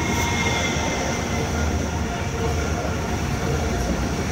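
Turquoise Frankfurt light-rail train of coupled cars running past close to the platform: a steady rumble of wheels on rails and running gear.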